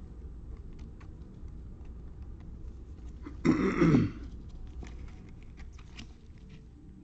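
A person clears their throat with a short two-part cough about halfway through, over faint scattered clicks and rustles of trading cards being handled.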